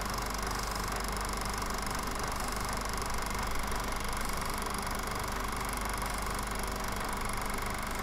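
Steady mechanical running noise with a constant hum and hiss, the sound of a film projector running while a silent home movie is transferred.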